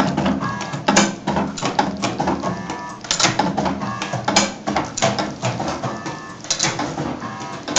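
Automatic wire cutting and stripping machine running: short motor whirs as the wire feeds, broken up by a quick run of sharp clicks and several louder clacks from the cutting and stripping blades.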